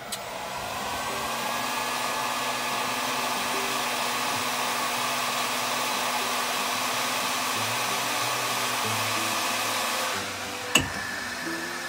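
Heat gun blowing hot air onto the front tab of a plastic EasyShoe cuff to melt it for welding. Its fan whines up to speed at the start and then runs steadily. About ten seconds in it turns somewhat quieter, and a sharp click comes just after.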